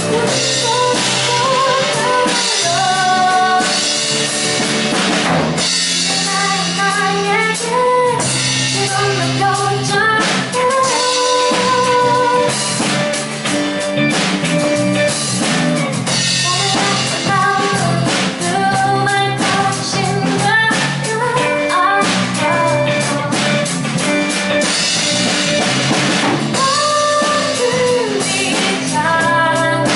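Live band playing a song: lead vocal sung into a microphone over acoustic guitar, electric guitar, bass, keyboard and drum kit.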